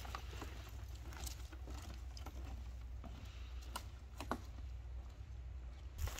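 Footsteps on a dirt hiking trail: scattered soft crunches and clicks at an irregular pace, over a low steady rumble.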